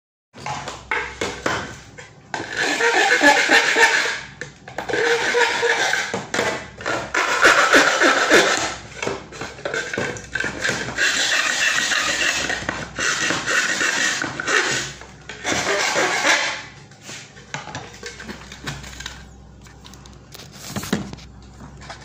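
A hand tool scraping an opening in a grey electrical enclosure box: stretches of scraping strokes a couple of seconds long, with short gaps, that die away about sixteen seconds in, leaving a few light knocks.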